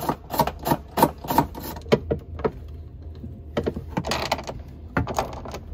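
Hand socket ratchet clicking in a run of short, quick strokes as a bolt is loosened to take a Jeep Wrangler's top off.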